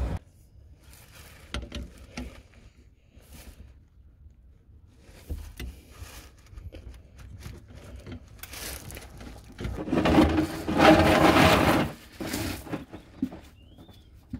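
Socket wrench working on the drain plug of a rusty rear differential, with scattered clicks and knocks of metal tools. About ten seconds in comes a louder noisy stretch lasting about two and a half seconds.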